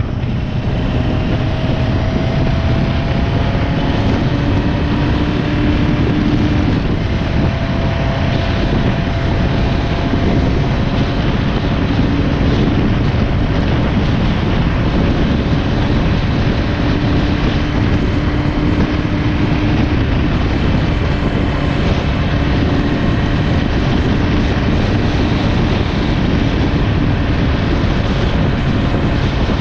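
Motorcycle being ridden at road speed: a steady low engine rumble mixed with wind rush on the microphone, with a faint engine hum that holds for several seconds at a time.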